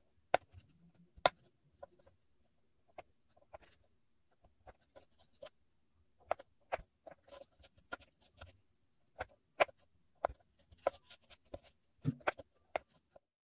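Knife crunching through the crisp toasted crust of bread and tapping on the cutting board: irregular sharp crackles and clicks, the loudest two within the first second and a half.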